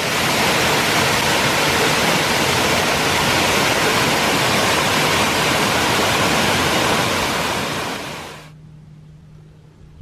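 Small mountain waterfall cascading over rocks, a loud, steady rush of falling water that fades out about eight seconds in.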